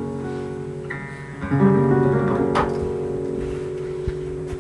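Acoustic guitar chords ringing out, with fresh chords strummed about one second and a second and a half in, and a sharp click near the end.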